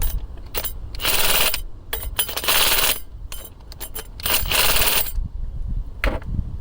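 A wrench ratcheting as it tightens the three clamp bolts of a brake line flaring tool: three bursts of rapid metallic clicking, about a second each, with single clicks between them.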